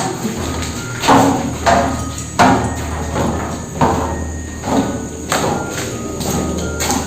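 Background music with percussive hits about once a second over a steady low drone.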